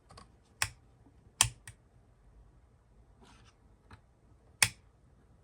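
Several sharp clicks and lighter ticks from handling the electronics on the bench while a switch is checked for continuity, three of them loud and spaced over a few seconds.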